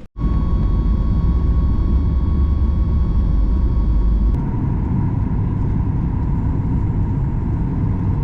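Steady, loud vehicle rumble with a thin steady whine over it; the whine drops slightly in pitch and the higher tones fall away about four seconds in.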